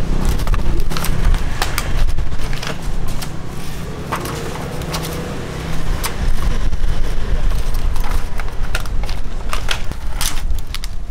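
Clear plastic clamshell food boxes crackling and clicking in irregular bursts as they are handled and closed, over a steady low rumble.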